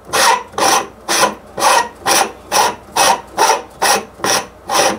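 SkyWatcher 0.85x focal reducer/field flattener being unscrewed by hand from the telescope's focuser, its threads and barrel turning in a regular run of short strokes, about two a second, one per twist of the grip.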